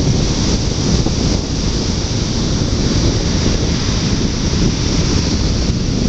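Ocean surf breaking: a steady loud rush, with wind buffeting the microphone into a heavy low rumble.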